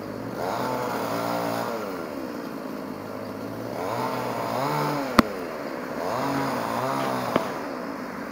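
Druzhba two-stroke chainsaw revving up and dropping back three times, with two sharp clicks in the second half.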